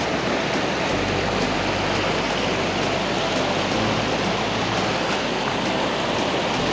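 Fast mountain stream rushing over rocks in whitewater, a loud steady rush of water.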